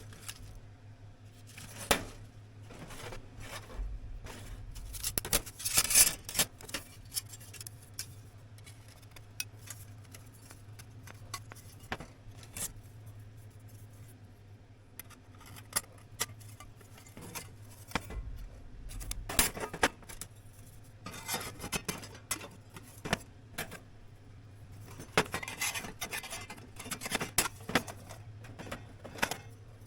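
Metal pieces clinking and scraping against each other in scattered bursts, with a steady low hum underneath.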